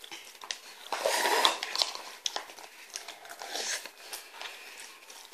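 Children eating noodles from paper cups with plastic forks: chewing, with scattered clicks and brief scraping and rustling bursts from the forks and cups.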